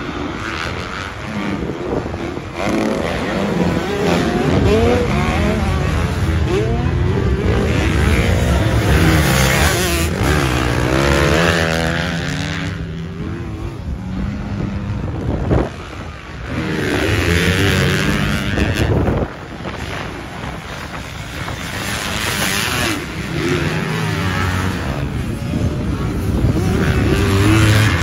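Several motocross dirt bikes' engines revving as they ride round the track, the pitch rising and falling with the throttle as the bikes go through corners and over jumps.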